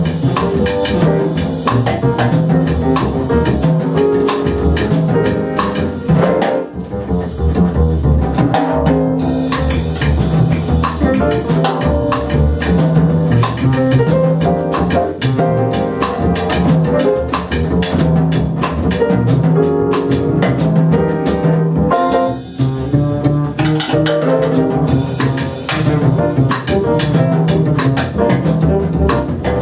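Jazz piano trio playing: acoustic grand piano with plucked upright double bass and drum kit, the bass prominent in the mix.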